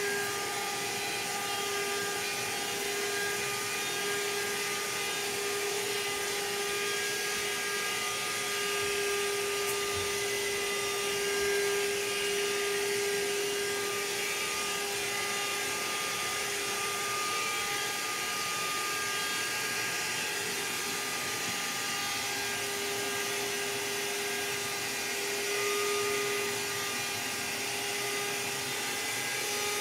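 Vacuum cleaner running steadily: a constant motor whine over a rush of air.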